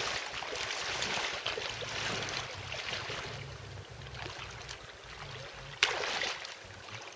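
Shallow lake water sloshing and splashing around wading legs, with one sudden, louder splash near the end.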